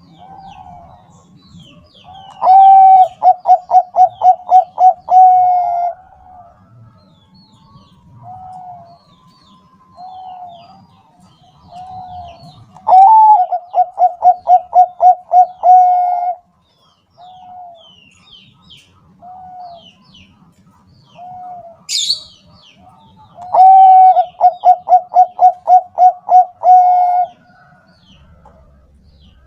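Bangkok-strain zebra dove (perkutut) singing: three long phrases of rapid, evenly spaced coo notes, with softer single coos between them. Faint high chirps run underneath, and there is one brief sharp click near the end.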